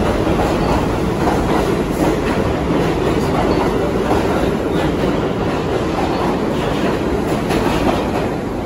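New York City subway train running past the platform at speed: a loud, steady rumble of steel wheels on the rails with a clickety-clack over the rail joints, easing slightly near the end.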